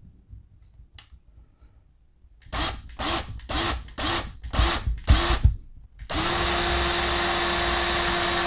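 Electric drill spinning up in six short pulses about half a second apart, then running steadily from about six seconds in, as its twist bit drills out the rivet on the die-cast base of a model truck to open it up.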